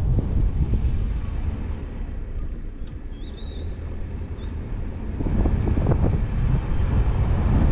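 Car driving, with wind buffeting the microphone over low road and tyre rumble; the noise eases through the middle and builds again after about five seconds. A few faint high chirps sound between about three and four and a half seconds in.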